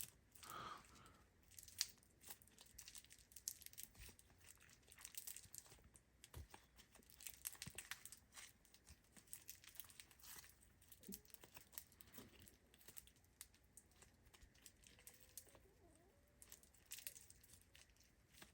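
Faint, irregular crackling and squishing of a thick, clay-heavy butter-like slime being stretched and squeezed by hand.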